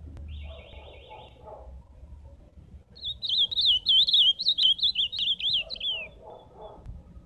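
Male ultramarine grosbeak (azulão) singing one loud, warbled phrase of quick up-and-down notes lasting about three seconds, starting a little before halfway and ending on a falling note. A faint fast trill comes near the start.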